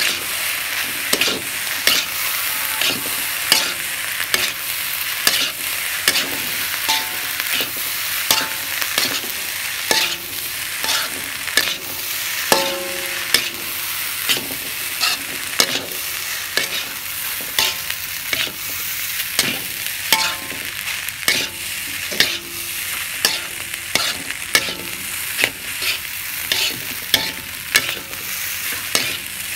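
Fried rice sizzling in a hot wok while a spatula stirs and turns it, scraping and knocking against the pan about once a second.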